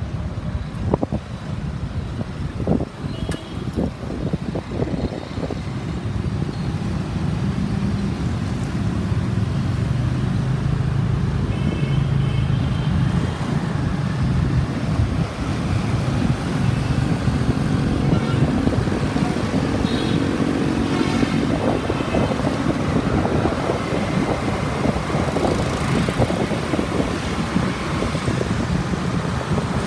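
Street traffic heard from a moving motorbike: a steady hum of motorbike engines and road noise. Wind buffets the microphone in the first few seconds, and a few short high beeps sound at intervals.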